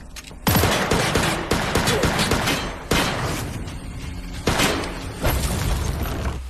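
Rapid gunfire in an action-film mix: a sudden volley of many shots about half a second in, with further bursts about three, four and a half and five seconds in.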